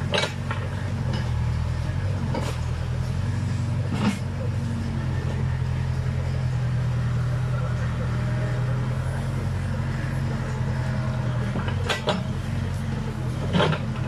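Backhoe loader's diesel engine running steadily under load as the bucket pushes through brush, with a few sharp cracks of stems and branches breaking.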